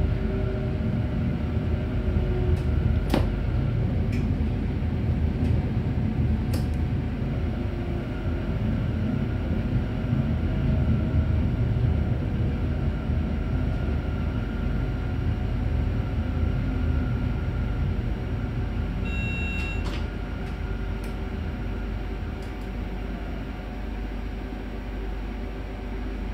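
Train rolling slowly into a terminus platform, heard from the front cab: a steady low rumble with occasional sharp clicks over the rails, growing quieter over the last several seconds as it slows toward the buffer stops. About 19 seconds in, a short high tone sounds.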